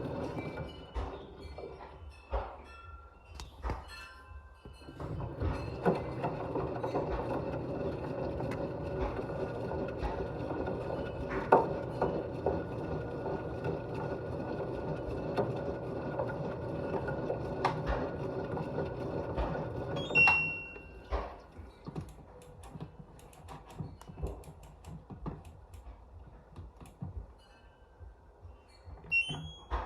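Washing machine running, its motor humming steadily while a ball knocks about in the drum. About two thirds of the way through the hum stops after a short high beep, leaving scattered clicks, and a few short rising beeps come near the end.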